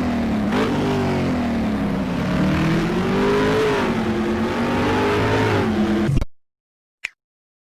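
Car engine running and being revved, its pitch rising and falling, then cut off abruptly about six seconds in, followed by silence and one short click near the end.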